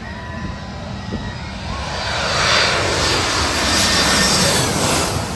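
Large jet airliner passing low overhead. Its engine noise builds to a loud rushing peak about two seconds in, holds, then begins to ease near the end.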